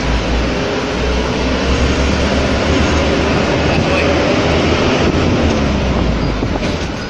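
Steady road and engine noise of a moving vehicle, heard from inside it, with a heavy low rumble; it eases a little near the end.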